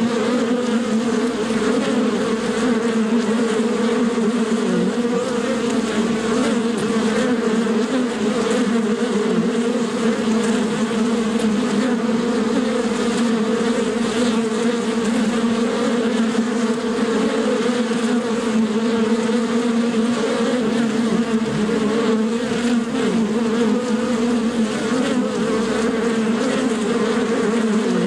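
Bees buzzing steadily, a low drone that wavers slightly in pitch.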